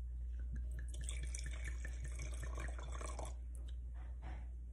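Red wine being poured from a bottle into a wine glass, a faint patchy trickle and drip of liquid, over a steady low hum.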